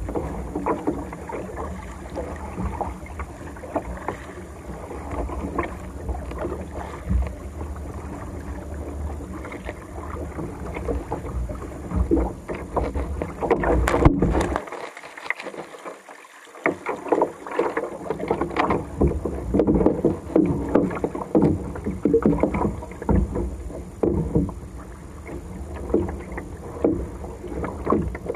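Sea water splashing and sloshing against a kayak as a seabird is pulled from the water alongside, with wind rumbling on the microphone. A single sharp click comes just before halfway, and the wind rumble drops out for a couple of seconds after it.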